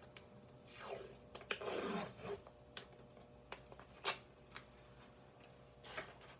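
Faint handling noises: two rubbing, squeaky sweeps that fall in pitch, about a second in and around two seconds, then a few scattered sharp clicks.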